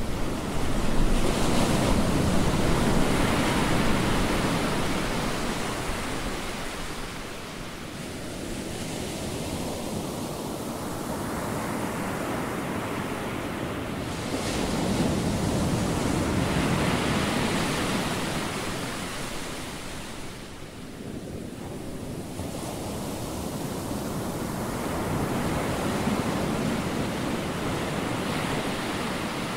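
Ocean surf: waves breaking and washing up the beach as a steady rush that swells and ebbs, loudest a second or so in, again about fifteen to eighteen seconds in, and once more near the end.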